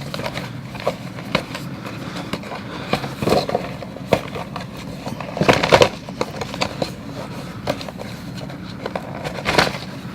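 A box being opened and its contents handled: scattered small clicks and rustles, with louder scraping bursts about three, five and a half, and nine and a half seconds in.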